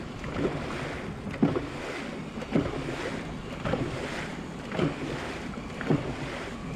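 Dragon boat under way: water rushing along the hull with wind on the microphone, and a sharp surge about once a second in time with the crew's paddle strokes.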